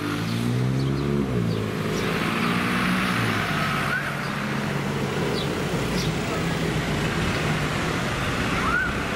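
Road traffic in a town street: a car engine passes close in the first two seconds, its note rising and falling, then steady traffic noise with cars going by.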